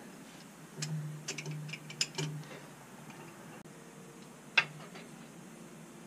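Ratchet wrench clicking in short runs as bolts are backed out of a 6.4 Hemi engine block, then one sharp metallic click about four and a half seconds in.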